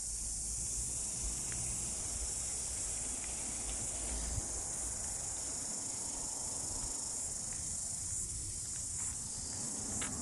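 Steady insect chorus: a continuous high-pitched shrill drone that holds unchanged throughout, with a low rumble underneath in the first few seconds.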